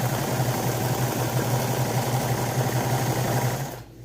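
Electric sewing machine running steadily at speed with a low motor hum, stopping abruptly near the end.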